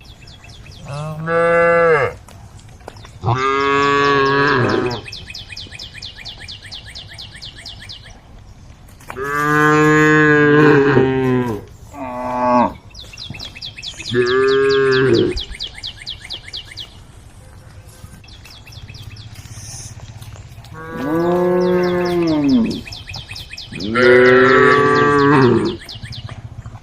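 Cows mooing: seven long moos, one after another, with pauses of a few seconds between them.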